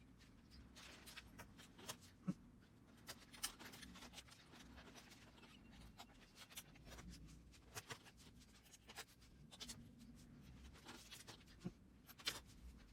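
Faint, scattered small clicks and light scraping, as of small parts and tools being handled on a workbench, over a low hum.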